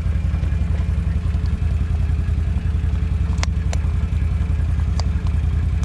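Small 12-volt portable air compressor running with a steady drone, with a few sharp clicks about halfway through and near the end.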